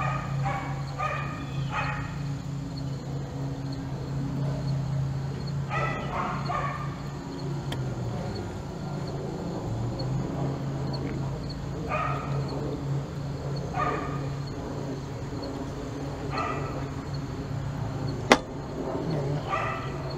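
A dog barking in short groups of quick yips, several times, over a steady low hum. There is one sharp click about eighteen seconds in.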